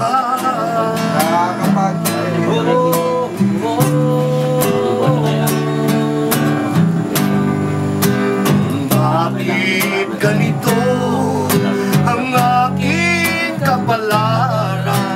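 Acoustic guitar strumming chords in a steady rhythm during an instrumental passage between verses of a song, with a wavering melody line above it.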